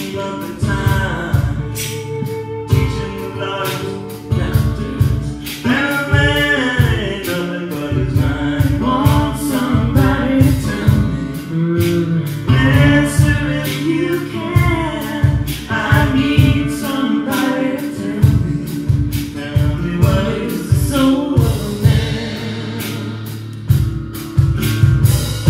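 Live blues band playing: singing with backing voices over acoustic guitar, bass and a drum kit keeping a steady beat.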